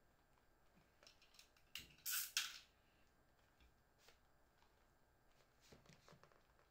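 A small blade slitting the seal on a cardboard smartphone box: a few light clicks, then a short scraping rasp about two seconds in. Soft taps and rustles of the box being handled follow near the end.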